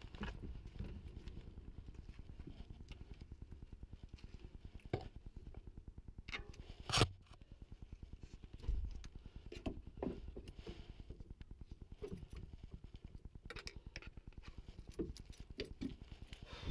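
A Cannondale Habit SE mountain bike being lifted and loaded into the back of a van: scattered scrapes, clicks and light knocks, with one sharp knock about seven seconds in and a dull thud soon after.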